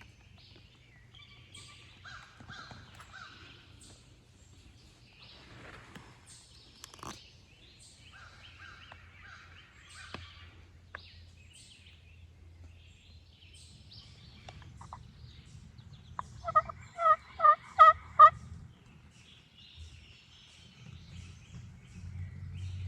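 Wild turkey gobbler gobbling at close range: one rapid, rattling gobble of about six pulses lasting under two seconds, about three-quarters of the way through. Before it there are only faint high calls and a few small clicks.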